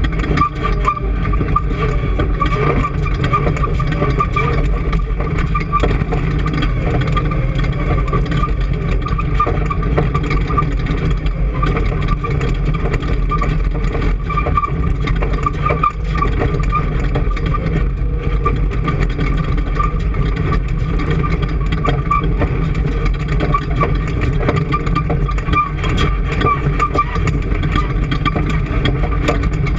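An engine or similar machine running steadily without letting up, with a constant hum and whine.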